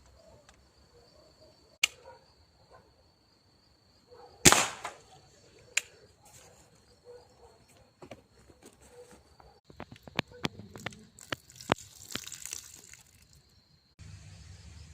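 A single air-rifle shot, a sharp crack with a short tail about four and a half seconds in, the loudest sound here. A few lighter clicks come before and after it, and a quick run of clicks and a brief rattle near the end, over a steady high thin tone.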